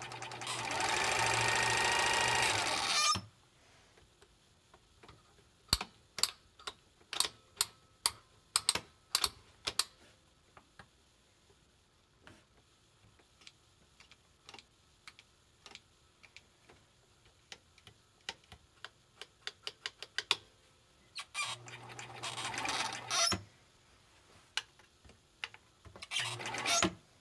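Bernina Record 830 electronic sewing machine running steadily for about three seconds under the foot pedal, then stopping. A long string of separate sharp clicks follows as its controls are worked. The machine then runs twice more, for about two seconds and then briefly near the end.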